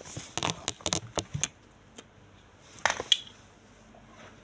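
Crinkling, crackling handling noises of something being fitted on by hand: a quick run of small clicks in the first second and a half, and a few more about three seconds in.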